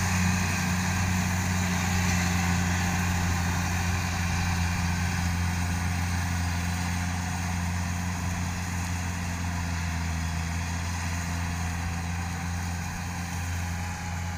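Kubota DC70 rice combine harvester's diesel engine running steadily as the machine cuts and threshes rice, a constant low hum with its mechanical whir; it grows a little fainter as the harvester moves away.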